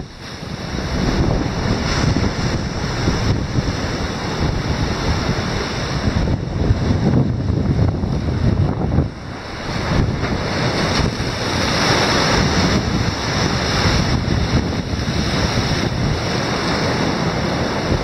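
Rough sea surf breaking and washing over a rocky shore of shell-rock boulders, rising and falling with each wave, with wind buffeting the microphone.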